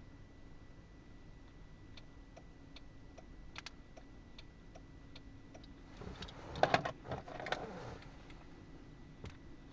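Light clicks of key-fob buttons being pressed, one every half second or so, followed about six seconds in by a louder cluster of knocks and rustling as the fob is handled.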